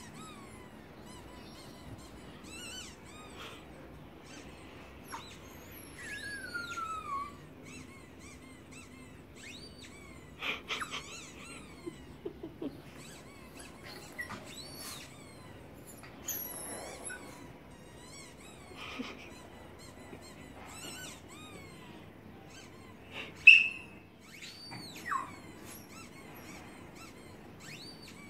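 Squeaky-toy squeaks played through a laptop's speaker: many short high squeaks, some sliding up and down, one long falling squeal about six seconds in. A chihuahua yips now and then in reply, the loudest sounds coming near the end.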